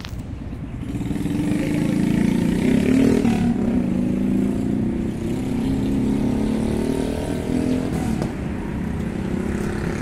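A motor vehicle's engine running and picking up speed, swelling about a second in and then holding steady, with a low rumble of wind on the microphone.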